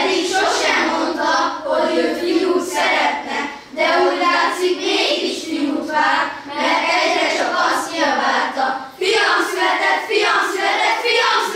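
A group of children singing a song together in phrases.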